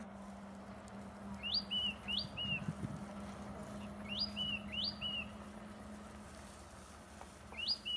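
A bird calling three times, about three seconds apart. Each call is a pair of quick rising whistled notes, each note dropping to a short lower note.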